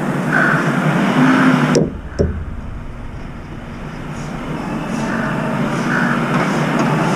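Road traffic noise, a continuous rumble of passing vehicles. About two seconds in, the hiss suddenly drops away and a deeper rumble comes up, then the noise slowly builds again.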